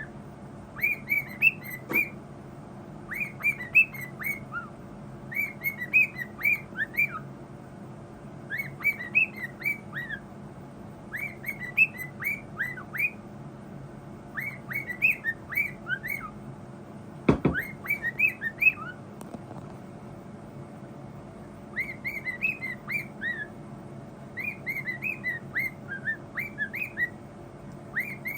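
Pet bird whistling a repeated song of short chirps that glide downward, in phrases of about a second every couple of seconds. A single sharp knock comes about 17 seconds in.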